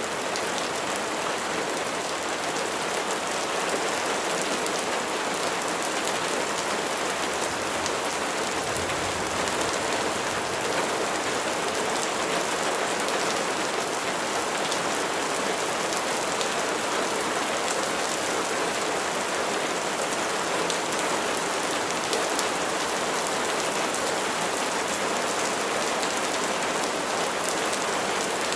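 Steady rain falling, an even hiss of drops with fine scattered patters on a surface.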